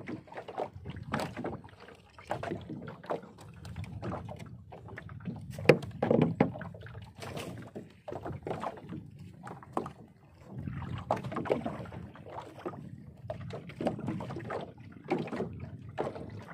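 Irregular knocks and bumps on a small fishing boat as gear and line are handled, over a low rumbling noise; one sharp, loud knock about six seconds in.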